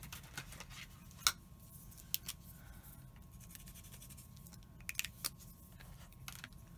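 Art supplies being handled on a craft desk: a handful of sharp little clicks and taps, the loudest about a second in, as a pen is picked up and put to use, over a steady low room hum.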